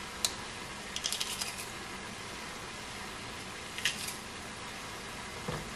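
Plastic garlic press clicking and clacking as garlic cloves are loaded and squeezed over the pot: a few sharp clicks, a quick rattle of them about a second in, and a duller knock near the end.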